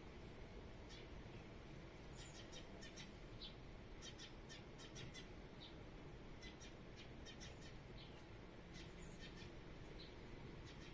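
Small songbirds giving short, high chirps, scattered irregularly and faint, over a low background rumble.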